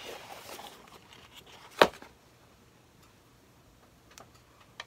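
Cardboard airbrush box being handled: soft rustling, then a single sharp knock a little under two seconds in, followed by two faint clicks near the end.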